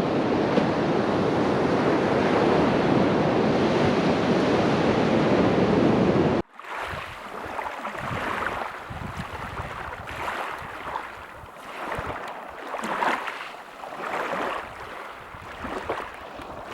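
Sea surf and wind buffeting the microphone in a steady, loud rush that cuts off suddenly about six seconds in. After that, quieter water washing in, swelling and fading every second or two.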